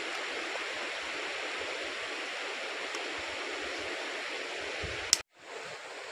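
Steady rushing of a river flowing over stones. One sharp knock about five seconds in, after which the sound cuts out for a moment and comes back a little quieter.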